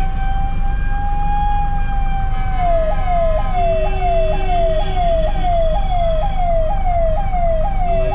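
Ambulance siren sounding: a slow wailing tone that rises a little and holds, then about two and a half seconds in switches to a fast warble of quick repeated pitch sweeps, about two a second. A low steady rumble runs underneath.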